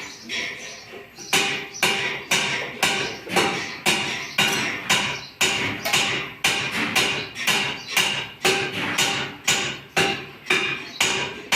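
Hammer striking copper in a steady rhythm, about two blows a second, each blow ringing briefly. The first blows are less even before the rhythm settles about a second in.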